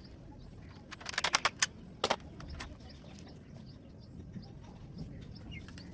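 A quick run of sharp clicks and snaps about a second in, then one more snap, as laptop parts are pried and pulled apart, over a faint low hum.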